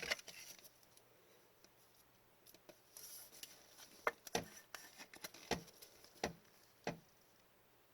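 Trading cards and plastic card holders being handled on a table: a brief rustle about three seconds in, then a series of separate sharp taps and clicks.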